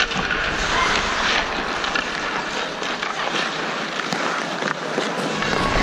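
Ice hockey skates scraping and carving across rink ice, with wind rushing over the microphone of a camera worn by a skating referee. The low wind rumble eases about three seconds in and comes back near the end.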